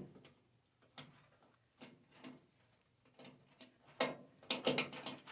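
Scattered clicks and knocks of hand tools and screws being handled, with a denser, louder cluster near the end.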